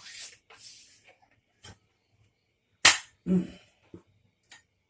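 Uklik air rifle fired once: a sharp crack about three seconds in, followed a moment later by a duller thump. Softer handling noises come in the first second.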